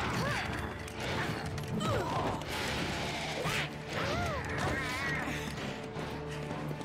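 Action-cartoon fight soundtrack: dramatic background music with a series of hit and crash sound effects.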